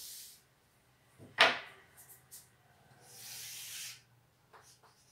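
A chalkboard being wiped with a duster: two short hissing scrubs about three seconds apart. Between them, about a second and a half in, comes one sharp knock against the board, the loudest sound, followed by a few faint taps.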